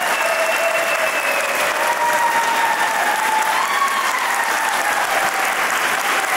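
Crowd of wedding guests applauding steadily, greeting the couple just pronounced husband and wife.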